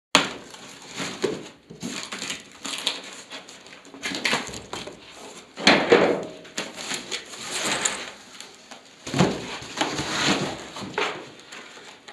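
Cardboard box and its packing being handled: flaps pulled open and packaging crackling and rustling in irregular bursts as parts are lifted out, loudest near the start, about six seconds in and around nine to ten seconds in.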